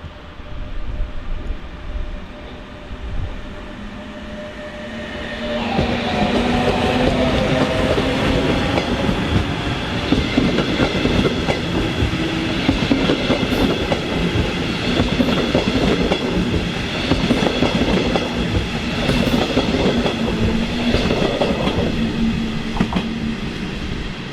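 A train running along the station track past the microphone, wheels clattering over the rail joints. It grows loud about five seconds in and stays loud, with steady hums running under the clatter.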